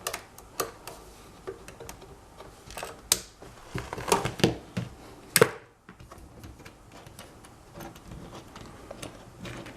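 Scattered clicks and light knocks of hard equipment being handled on a workbench, most likely the UV curing lamp being set up, with the loudest knock about five seconds in. After that it is quieter, with only a few faint ticks.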